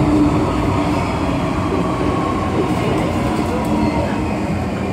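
MTR M-train (Hong Kong metro electric multiple unit) running at speed, heard from inside the carriage: a steady, loud rumble of wheels on track, with a faint whine slowly dropping in pitch.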